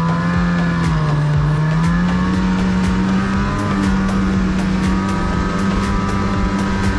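Snowmobile engine pulling away under throttle. Its pitch climbs as the sled gets going, then holds steady at speed with a slight dip and recovery in the first two seconds.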